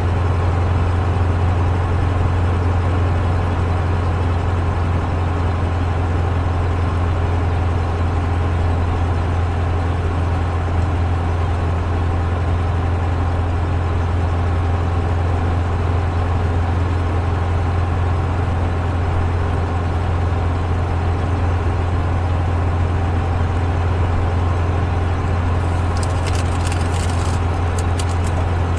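Inside the cabin of a 1972 Volkswagen Super Beetle cruising steadily on the highway: the air-cooled flat-four engine's steady low drone mixed with road noise. A run of light ticks comes in near the end.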